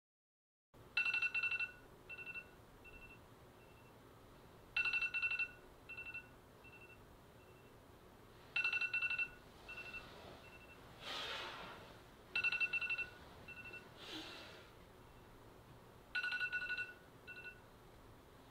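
A telephone ringing: five short trilling rings about four seconds apart, each trailing off in fading echoes. Two brief rushing sounds come between the later rings.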